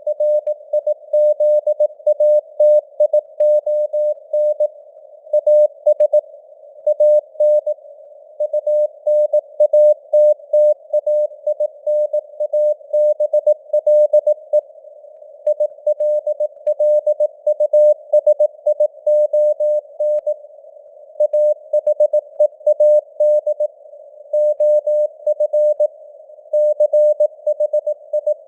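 Morse code sent at 18 words per minute: a single mid-pitched beep keyed on and off in dots and dashes, with a steady hiss of simulated radio noise between the characters.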